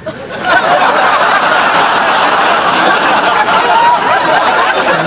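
Audience laughter: many people laughing together, swelling up about half a second in and holding steady.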